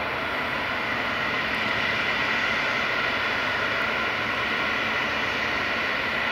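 Dassault-Breguet-Dornier Alpha Jet's twin Larzac turbofans running steadily at taxi power, heard as an even jet hiss with a high whine.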